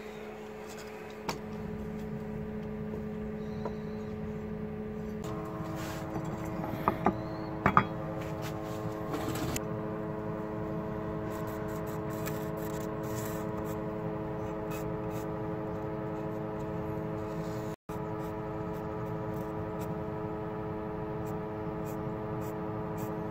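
Steady mechanical hum, its pitch shifting about five seconds in, with a few light knocks and scrapes a couple of seconds later.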